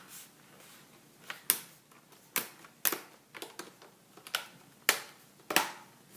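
Plastic screen bezel of a Sony Vaio laptop being pressed back onto the lid, its clips snapping into place one after another: a series of sharp, irregularly spaced clicks, about six loud ones with a few fainter ones between.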